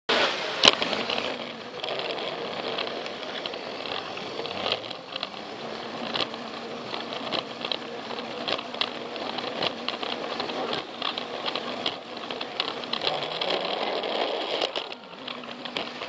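Plarail battery toy train running on plastic track: its small electric motor buzzes steadily while the plastic wheels and carriage click and rattle over the track, with a sharp click about a second in.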